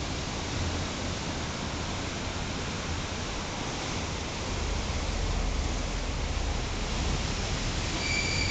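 Steady noise of rough sea surf breaking on the shore, with a low rumble growing stronger about halfway through. A thin high whistle starts near the end.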